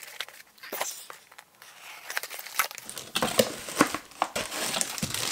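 Plastic packaging crinkling in irregular crackles, sparse at first and busier in the second half, as a laptop power adapter and its cord are handled and unwrapped.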